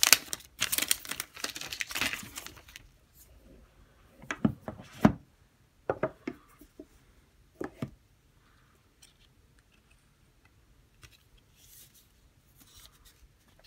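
Clear plastic shrink-wrap being pulled off a boxed iPhone X, crinkling and tearing for about three seconds, then a few sharp knocks as the cardboard boxes are handled on the desk, and faint rustling of paper inserts near the end.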